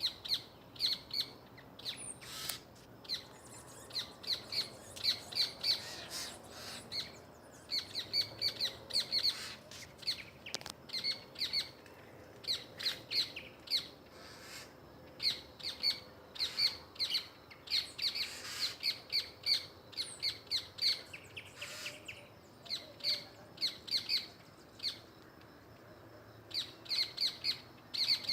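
Small birds giving sharp, high-pitched alarm calls in quick runs of three to five notes, over and over: the calls of birds mobbing an owl.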